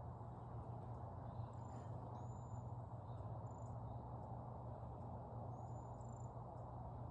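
Outdoor ambience: a steady low rumble with a few short, very high, thin chirps scattered through it.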